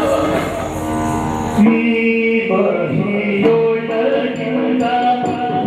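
Yakshagana theatre music: for about the first second and a half the accompaniment is dense and noisy over held drone notes, then a voice sings a melodic line over the drone, with drums and small cymbal ticks.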